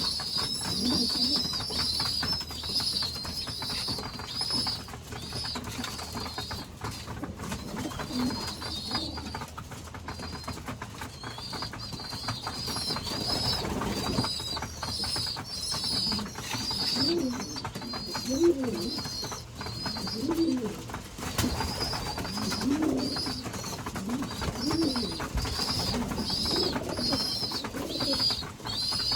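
Young pigeons (squeakers) making a fast, high, repeated peeping that goes on throughout, the begging call they use to pester the adults for food. Adult pigeons coo low now and then, most often from about halfway through.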